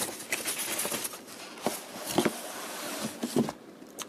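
Cardboard box being handled and moved on a fluffy terry towel: scratchy rustling and scraping, with several soft knocks as the box is set down.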